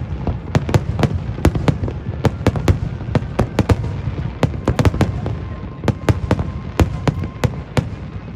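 Fireworks display: a rapid run of shells bursting, about three sharp bangs a second over a continuous low rumble of echoing explosions.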